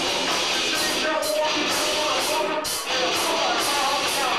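A death metal/grindcore noise band playing live: a loud, dense wall of band sound with only a brief dip a little under three seconds in.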